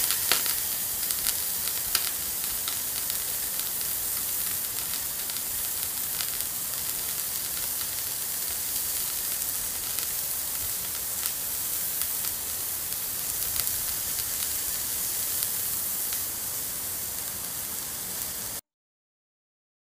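Meat sizzling on a wire grill over charcoal: a steady hiss sprinkled with small crackles and pops, cutting off suddenly near the end.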